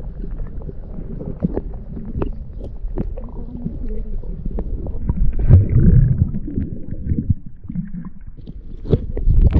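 Muffled underwater rumble and sloshing of water against an underwater camera, with scattered sharp clicks and knocks, and a louder rush of water about five and a half seconds in as the released barbel swims off.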